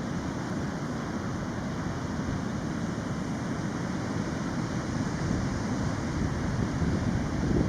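Ocean surf rushing on the beach, mixed with wind blowing on the microphone: a steady rush, heaviest in the low end.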